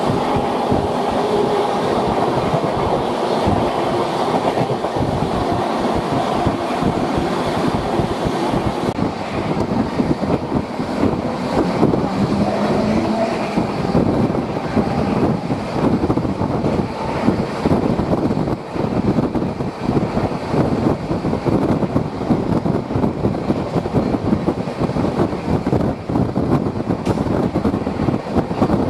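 Express passenger coach running at high speed, about 127 km/h, heard at its open door: a steady rush of wheels on rail and wind with fast clickety-clack over the rail joints. For roughly the first nine seconds a goods train of open wagons passes on the next track, adding to the noise.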